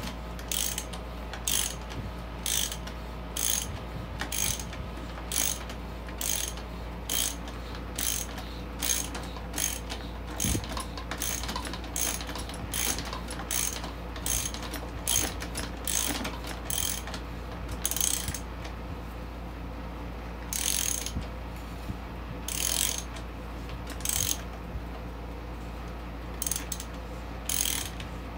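Socket ratchet wrench clicking in short repeated bursts as it turns in a dirt bike's threaded wheel axle. The bursts come about one and a half a second, then slow to occasional strokes for the last third.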